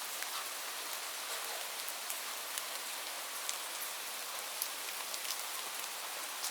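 Light rain falling steadily: an even hiss with scattered individual drops ticking on a surface.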